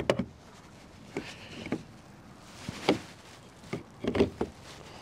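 A few scattered knocks and clunks, loudest in a quick cluster about four seconds in, as a rapid charger's connector is handled and pushed into the charging socket of a Fiat 500e.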